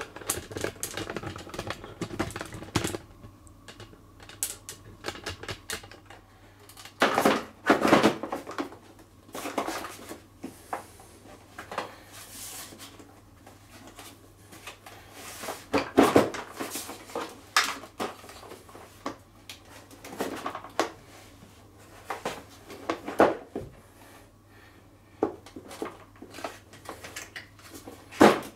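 Hard plastic housing parts of a pressure washer clattering and clicking irregularly as they are handled and fitted together around the pump, with louder clusters of knocks every few seconds.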